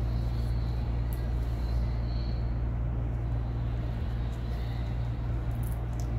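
Steady low mechanical hum with a faint hiss underneath, unchanging throughout.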